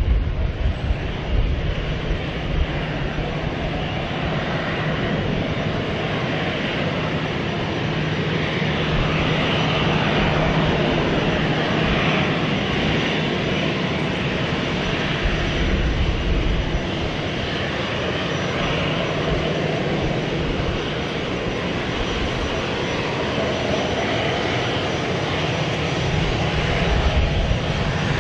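Airbus A320-214's CFM56-5B turbofan engines running at low thrust as the airliner taxis: a steady rush of engine noise over a constant low hum.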